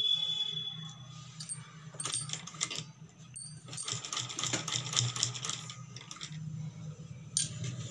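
Domestic sewing machine stitching in two short runs of rapid ticking, with a brief third run near the end, over a steady low hum.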